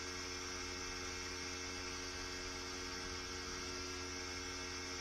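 Steady electrical hum with hiss: several fixed tones held without change.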